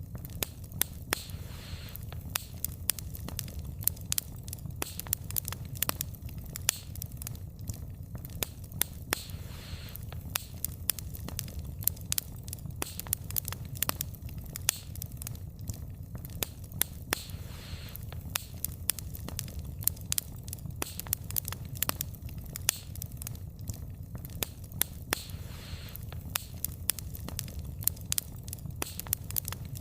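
Wood fire burning steadily, the logs crackling and popping in many sharp snaps over a low rumble of the flames, with occasional soft hissing.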